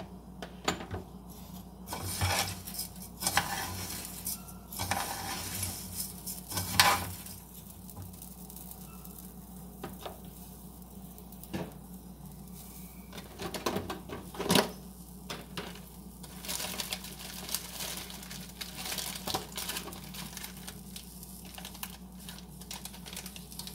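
Raw rice sizzling as it toasts in a pot, with a metal spoon scraping and clinking against the pot at irregular intervals as the rice is stirred, heaviest in bursts about two to seven seconds in and again past the middle.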